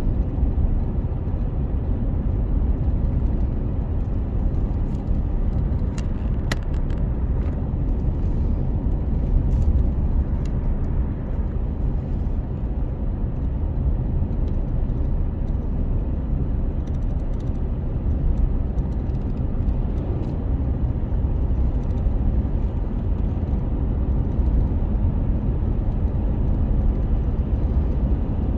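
Steady low rumble of a vehicle running, with one brief click about six seconds in.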